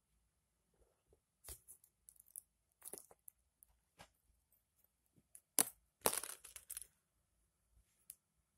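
Hands handling squishy toys: scattered short taps, crinkles and rustles, with the loudest cluster about six seconds in.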